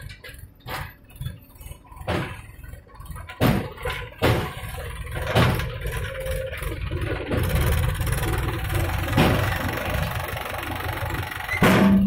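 JCB 3DX backhoe loader's diesel engine running with a steady low rumble while the backhoe digs, broken by several irregularly spaced sharp knocks.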